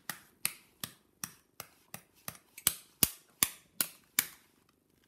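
A run of about a dozen sharp, evenly spaced taps or clicks, roughly two and a half a second, stopping shortly before the end.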